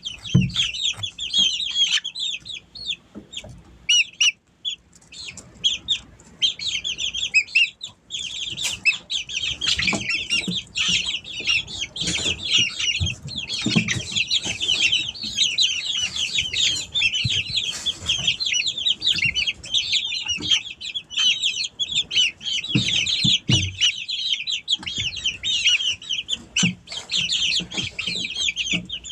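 A brooder full of half-grown chicks peeping and cheeping, a dense chorus of high chirps, thinner in the first several seconds and filling in from about 8 seconds on. Low knocks and bumps from the birds moving about come through underneath.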